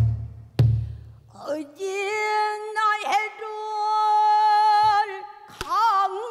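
Female pansori singing: a woman's voice holds one long steady note, then moves into wavering, bending phrases. A buk barrel drum gives two strokes at the start and another about five and a half seconds in.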